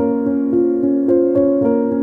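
Background music: a keyboard melody with a piano sound, playing notes in an even rhythm, several changes a second.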